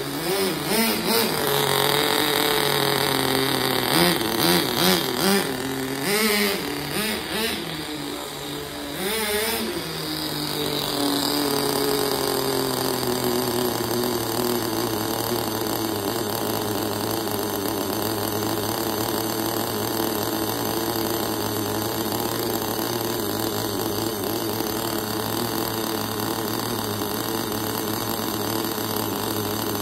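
Kyosho GT15 two-stroke nitro engine of an RC car, revving up and down in bursts for about the first ten seconds, then settling into a steady idle for the rest.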